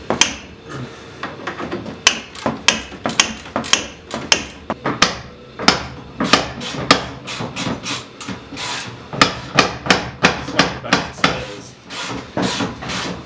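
Hammer striking a wedge-type ball joint splitter, metal on metal, in a rapid series of sharp blows, about two to three a second, starting about two seconds in: driving the splitter in to separate a front suspension ball joint.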